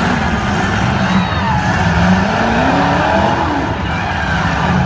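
Several demolition derby cars' engines running and revving in the arena, with voices mixed in.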